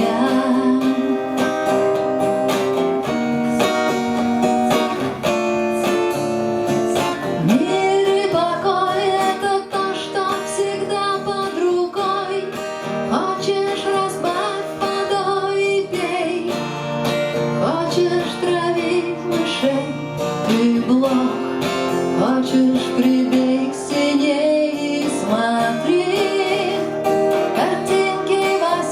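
Acoustic guitar music: strummed and plucked chords in an instrumental passage of a song, with a wavering melody line over them from about eight seconds in.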